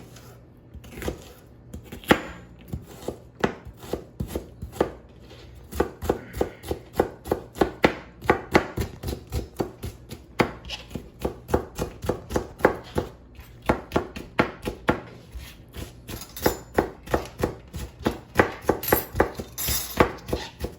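Knife chopping onion finely on a cutting board: a series of short sharp knocks, spaced out for the first few seconds, then a quick steady rhythm of about three to four strokes a second.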